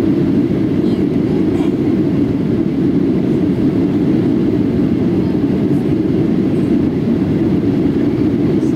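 Steady low rumble of a Boeing 737-800 heard from inside the passenger cabin: its CFM56 jet engines and the rush of air and rolling noise carried through the fuselage, without change in level.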